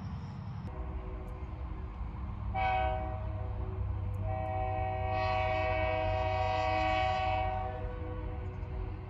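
A horn sounding with several tones together: one short blast, then a long blast of about three and a half seconds, over a steady low rumble.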